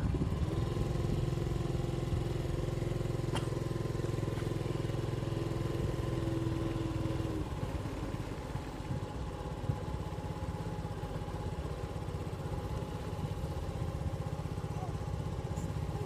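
Small motorcycle engine running steadily while riding. Its note eases off and turns a little quieter about halfway through.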